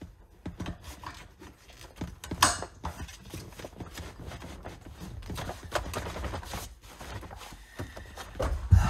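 Plastic child car seat being handled and fitted onto a pickup's rear bench seat: a run of clicks, knocks and rustles from the seat, straps and buckle hardware. There is one sharp click about two and a half seconds in and a heavy thump near the end.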